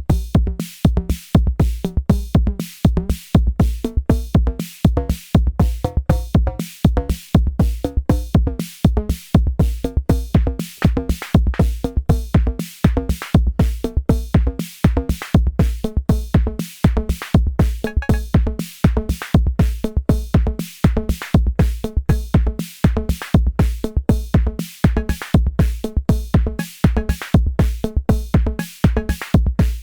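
Arturia DrumBrute Impact analog drum machine playing a steady programmed beat: a deep kick drum under fast, even, bright percussive hits, with some pitched drum tones.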